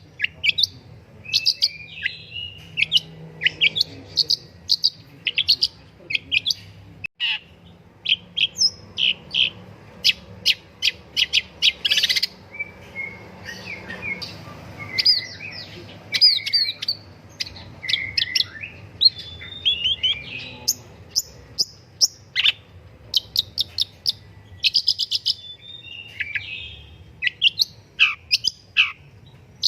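Long-tailed shrike singing: a continuous, varied stream of sharp, rapid chattering notes and quick repeated runs, mixed with short slurred whistles.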